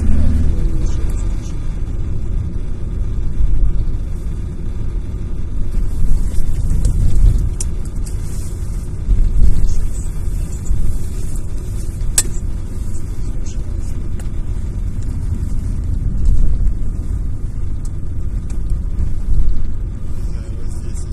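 Inside a moving car: steady low engine and tyre rumble that swells and eases every few seconds. There is one sharp click about twelve seconds in.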